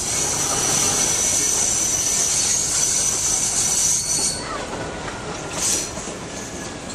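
Passenger train running round a curve, its wheels squealing against the rail in a steady high-pitched squeal over the rumble of the running train. The squeal stops about four seconds in, and a brief high rushing sound follows just before six seconds in.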